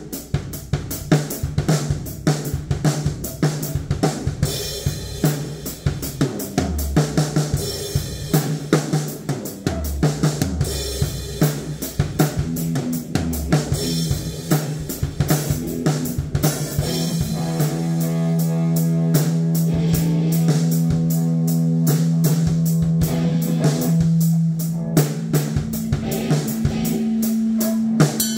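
Band jamming heavy metal: a drum kit played with rapid kick and snare hits over a low note. From a little past the middle, a low chord is held and rings steadily under the drums.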